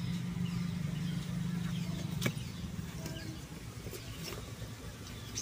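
Small birds chirping in short, quick calls, over a steady low hum that stops with a click about two seconds in.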